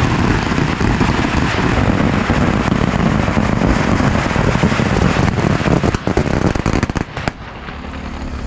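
A long string of Chinese firecrackers going off in a dense, continuous crackle. It thins to a few last pops about seven seconds in.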